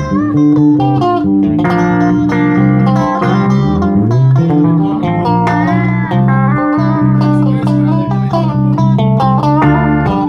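Guitar music: quick plucked guitar notes, some bent in pitch, over steady low bass notes.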